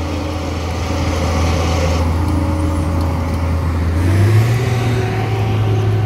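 Asphalt paver's diesel engine running steadily with a deep, even hum, its pitch stepping up slightly about four seconds in.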